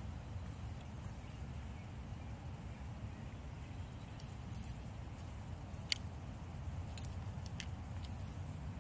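A few sharp clicks and light rustling as a camera and tripod are handled, over a steady low background rumble.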